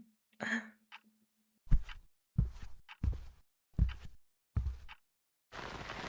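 A short breath at the start, then five footsteps about 0.7 s apart, then about a second and a half of rustling, sliding noise as clothes are rummaged for.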